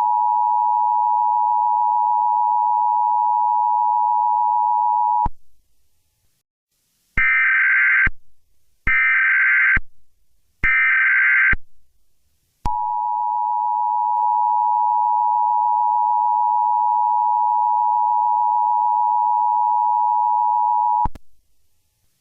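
Emergency Alert System two-tone attention signal (853 and 960 Hz together), a steady loud tone that stops about five seconds in. After a short gap come three one-second screeching bursts of SAME digital header data, then the attention tone starts again and holds for about eight seconds before cutting off shortly before the end.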